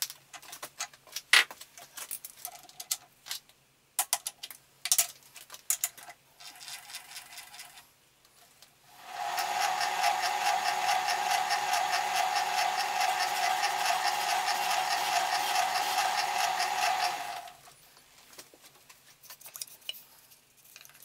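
Clicks and knocks of a machine vise being tightened and tools being handled. About nine seconds in, a metal shaping machine starts and runs steadily with a whine and a fast, even ripple. It stops after about eight seconds.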